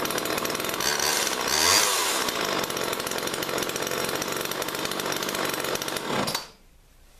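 Homelite XL-2 two-stroke chainsaw running, revved up and back down about two seconds in, then shut off near the end, its pitch dropping as the engine dies.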